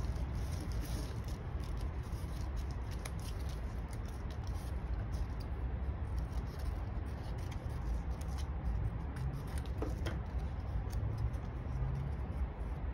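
Paper being handled for a cut-paper craft: continuous light rustling with scattered small clicks and snips, over a steady low hum.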